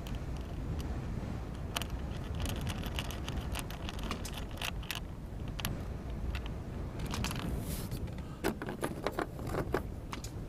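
Irregular clicks, taps and rattles of small parts and tools being handled while an air line is fastened among wiring, over a steady low rumble.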